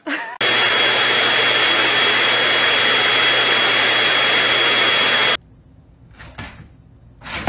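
A small electric appliance motor running steadily, a loud even whooshing noise with a high whine over a low hum, starting abruptly and switched off suddenly after about five seconds.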